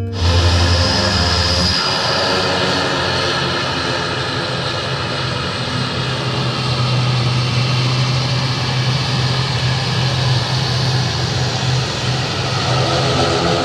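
Twin-turboprop airliner's engines and propellers running as it taxis and turns on the runway: a steady, loud propeller drone. A high whine fades out over the first few seconds, and the low drone steps up slightly in pitch about two seconds in.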